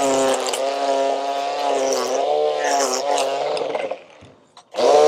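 Handheld string trimmer running at full speed, its pitch sagging and recovering as the line cuts grass. The trigger is released about four seconds in, then squeezed again briefly near the end, the motor pitch rising and then falling.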